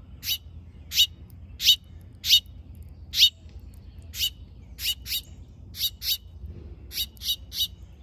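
A small songbird giving short, sharp chip calls, over a dozen at uneven intervals of roughly half a second, bunching closer together near the end.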